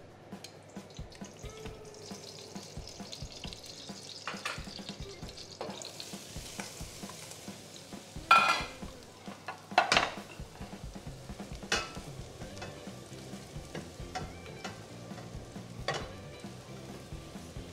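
Chopped vegetables frying in olive oil in a stainless steel pot, a steady soft sizzle broken by a few sharp clatters as vegetables are tipped in and stirred, the loudest about halfway through.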